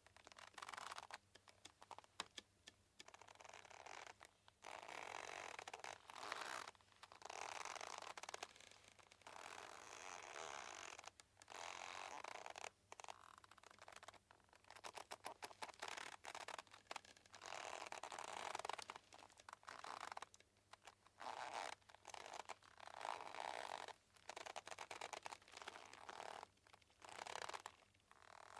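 Boat rope creaking under strain: a run of drawn-out, rasping creaks, each a second or two long, separated by short pauses and scattered with small clicks.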